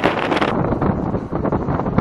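Strong wind buffeting the microphone: loud, gusting rumble and hiss that swells and eases unevenly.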